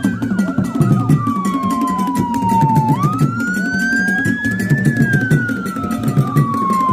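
A wailing siren sound over intro music with a steady low beat. The siren slides slowly down in pitch, rises again about three seconds in, and starts falling once more about five seconds in.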